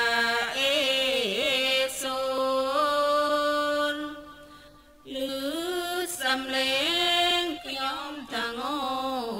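A single voice chanting a Thai Buddhist dhamma verse in long, drawn-out sung notes that glide up and down in pitch, in two phrases with a short pause about four seconds in.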